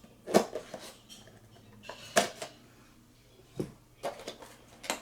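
Handling of a HeroClix booster pack and its small plastic figures and packaging: a few short, sharp clicks and rattles spread out, with a quicker cluster near the end.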